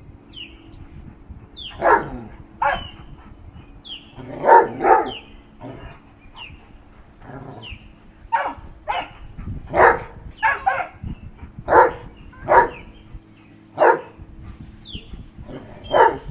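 Dog play barking: about a dozen short, sharp barks at irregular intervals, some coming in quick pairs.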